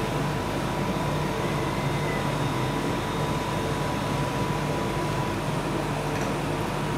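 Steady mechanical hum and noise, with a constant high tone running through it.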